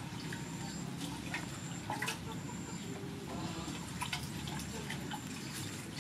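Water splashing and dripping in a stainless steel basin as hands stir and lift noodles soaking in cold water, in small irregular splashes.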